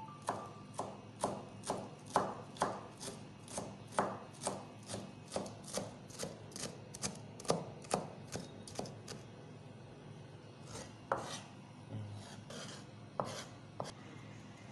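Chef's knife chopping a pile of shredded vegetable on a plastic cutting board: quick, even knife strikes, about two or three a second, thinning to a few scattered cuts after about nine seconds.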